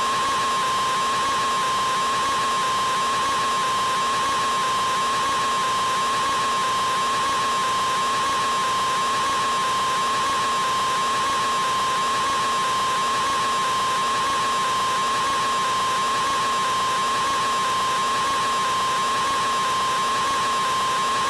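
A man's open-mouthed scream, artificially stretched into one unbroken held tone at an unchanging pitch and loudness.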